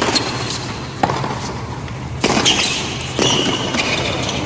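Tennis rally on a hard court: racket strikes and ball bounces about a second apart, with short high shoe squeaks on the court surface in the second half.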